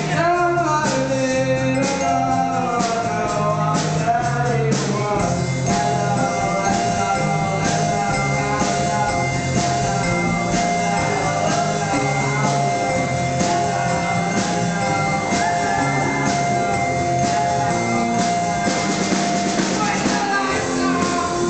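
Teenage rock band playing live: electric guitars, bass and a drum kit keeping a steady beat, with a boy singing into a microphone and a long note held over the top.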